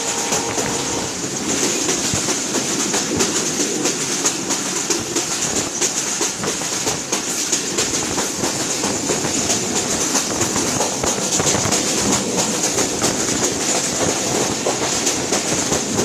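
The Sagardari Express passenger train running at speed, heard from an open window of the moving coach. Wind rushes past and the wheels clatter over the rails without a break.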